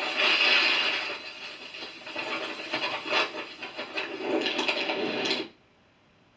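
Storm footage audio through computer speakers: a loud, rough rush of wind and surging water with irregular gusts. It cuts off suddenly about five and a half seconds in.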